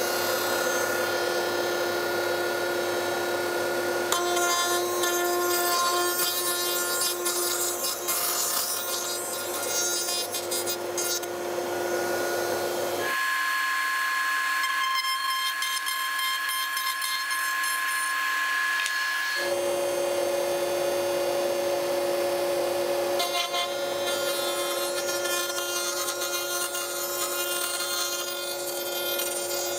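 Router running steadily in a router table while a round wooden dowel is turned in a drilled jig against the exposed bit, milling it down to a round tenon, with a hissing cutting noise over the motor whine. From about 13 s to about 19.5 s the whine shifts to a higher pitch, then returns.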